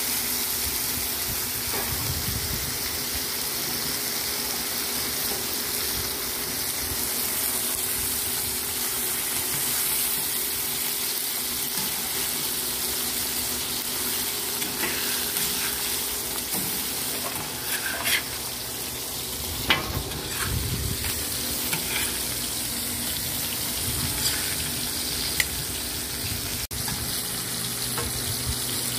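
Beef steaks sizzling steadily on a large flat iron tawa. In the second half a metal spatula scrapes and clicks against the griddle a few times as the pieces are turned.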